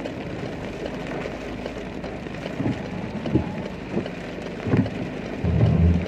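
Steady rain heard through a car window, with a few dull low thumps and a louder low rumble near the end as a large bus passes close by.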